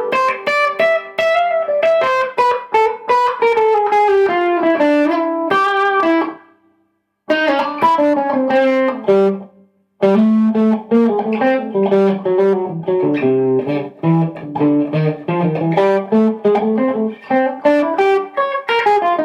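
Fender Stratocaster electric guitar played through a guitar amp, quick runs of single picked notes. The playing breaks off briefly about seven seconds in and again about ten seconds in.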